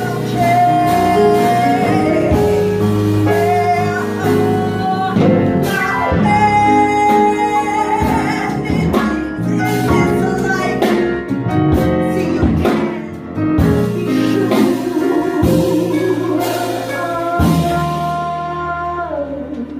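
A woman singing a slow jazz-blues number live, with long held notes that bend in pitch, backed by electric bass, keyboard and drums. The music thins out near the end.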